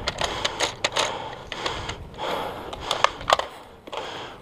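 Footsteps through dry fallen leaves and grass, heard as irregular rustling crunches mixed with sharp clicks and knocks.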